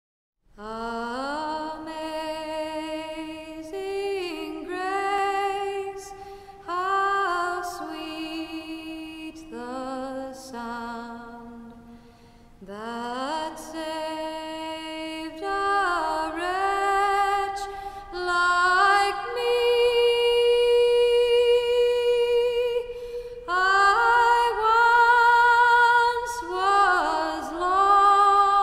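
Pit bull-type dog howling in long, wavering drawn-out notes, each scooping up in pitch at its start, with a woman's voice howling along at times.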